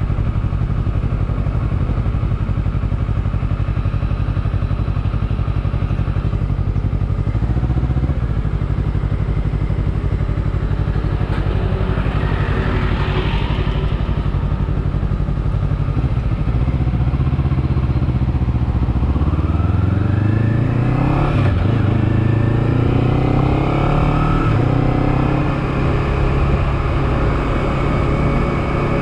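2019 Honda CBR250RR (MC51) parallel-twin engine with an Akrapovic carbon slip-on exhaust, idling steadily in stopped traffic. About two-thirds of the way in it pulls away, revving up, dipping briefly at a gear change, then revving up again.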